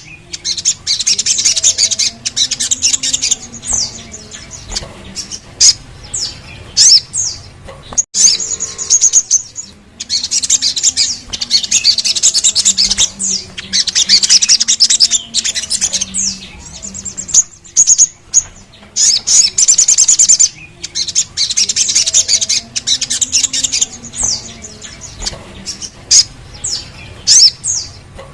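Crimson sunbird (sogok ontong) singing: loud, very high, rapid rolling trills lasting a few seconds each, repeated over and over with short sharp chips and notes in between.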